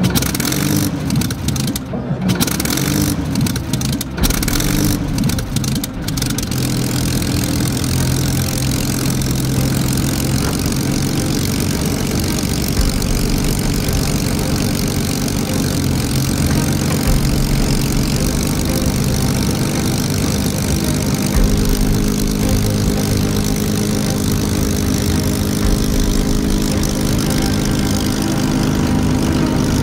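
Supermarine Spitfire Mk IX's Rolls-Royce Merlin V12 engine starting, firing unevenly with brief breaks for the first few seconds, then catching about six seconds in and running steadily at idle.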